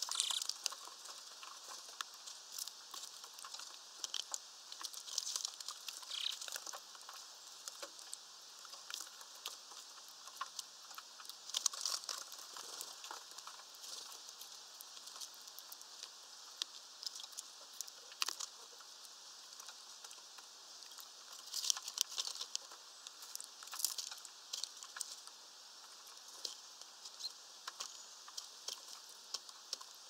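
Greenfinches and great tits pecking at peanuts through a wire-mesh feeder and scrabbling on the perch branches. Many small, irregular taps and rustles, with a few louder flutters of wings now and then.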